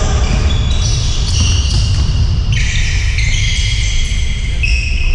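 Basketball game on an indoor court: sneakers squeaking sharply on the gym floor in quick overlapping runs, with the ball bouncing and a constant low thudding underneath.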